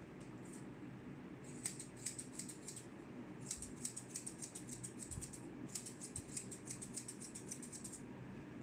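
Grooming scissors snipping through a Shih Tzu's neck and jaw fur in quick runs of light, rapid snips. The snipping starts about a second and a half in, pauses briefly near three seconds, and stops just before the end.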